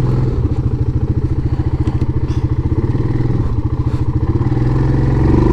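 Yamaha Grizzly 700 ATV's single-cylinder engine running under throttle in two-wheel drive as the rider tries to bump the quad up and over an obstacle. There are a few faint knocks, and the engine gets louder near the end.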